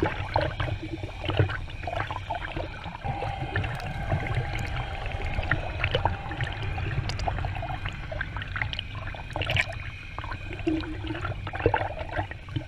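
River current rushing and gurgling over a submerged camera, with a steady low rumble and scattered small clicks and knocks.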